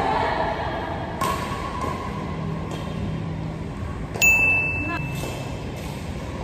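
Badminton play in a hall: a few sharp hits, and about four seconds in a loud event with a clear high-pitched ring lasting under a second, over faint background voices.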